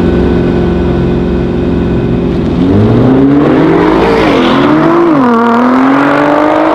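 Audi RS6 C7's twin-turbo V8 with an Akrapovic exhaust and a Nissan GT-R held at steady high revs on the start line. About two and a half seconds in they launch: the engine pitch climbs, drops at two quick upshifts, and climbs again as the cars accelerate hard past.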